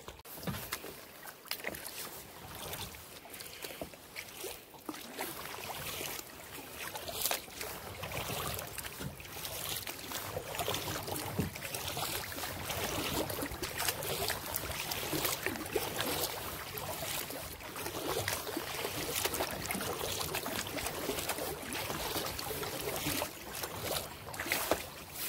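Kayak paddling: paddle blades dipping and splashing at irregular intervals, with water swishing and lapping around the hull.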